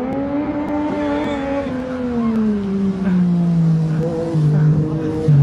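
Motorcycle engine running hard. Its pitch peaks about a second in, falls slowly over the next couple of seconds, then settles lower with small dips near the end.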